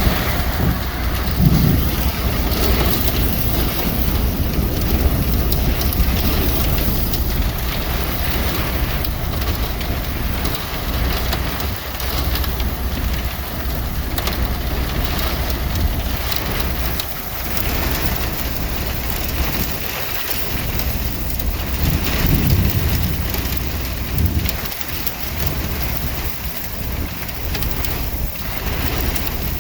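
Heavy rain and wind in a thunderstorm: a continuous rushing noise with a low rumble underneath.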